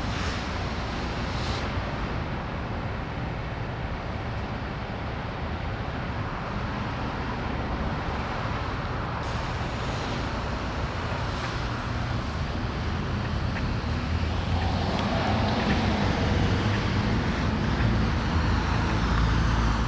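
Downtown street traffic: cars passing through an intersection, a steady rumble that grows louder near the end.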